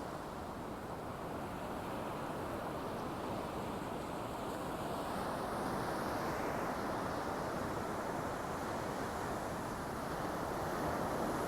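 Ocean surf: a steady rush of waves breaking on the shore, swelling a little about halfway through and again near the end.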